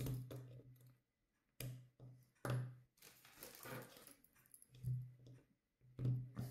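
Several light clicks and knocks from the hard glass-fibre-reinforced polyamide parts of a Begadi Pro 150-BB airsoft AR midcap magazine being handled and fitted together during reassembly.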